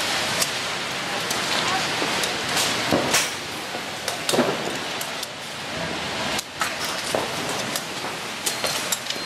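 Hundreds of rockets hissing as they fly, in a dense, continuous crackling rush, with sharp cracks and bangs every second or so as they strike and burst.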